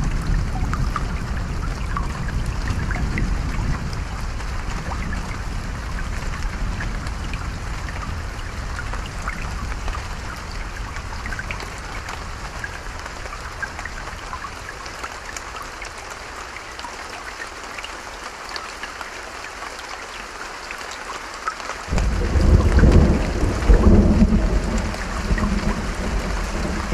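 Stream water and rain pattering steadily, with thunder. A low rumble dies away over the first half, then a sudden loud peal of thunder breaks about three-quarters of the way through and rumbles on.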